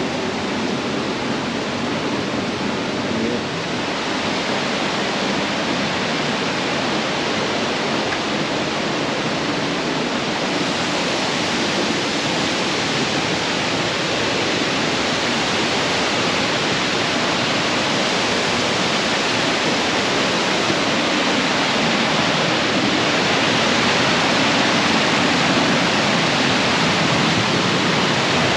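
A waterfall crashing into its pool, a loud steady roar of falling water that grows slightly louder toward the end.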